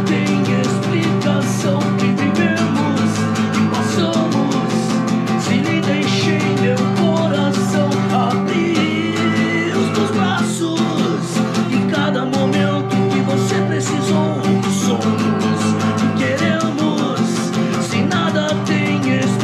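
A man singing in Portuguese while strumming an acoustic guitar, with steady strumming under the voice.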